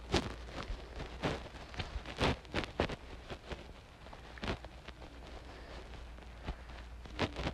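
Irregular light taps and clicks, a few a second, of fingertips tapping and drawing on a phone's touchscreen, over a low steady hum.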